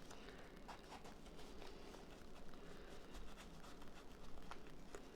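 Faint rustles and light taps of cardstock being handled and folded by hand.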